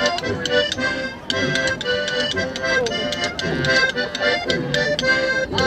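Accordion playing a Ukrainian folk dance tune over a steady, quick beat.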